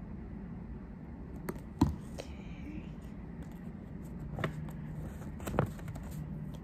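Hands working with paper cut-outs and a plastic glue bottle: a few light taps and clicks, the loudest just before two seconds in, over a steady low hum.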